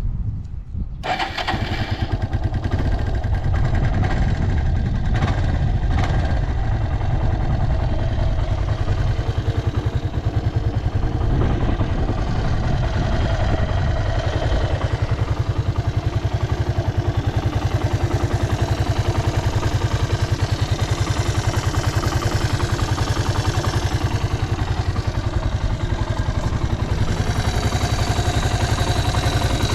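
Suzuki Djebel 125's single-cylinder four-stroke engine catching about a second in, then idling steadily. It runs evenly with no unusual noises.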